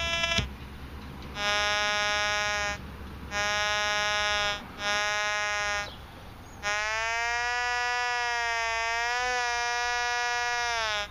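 Metal detector sounding target tones: three steady tones about a second each, then, about two-thirds through, a continuous pinpoint-mode tone, a little higher in pitch, that wavers as the coil sweeps over the target.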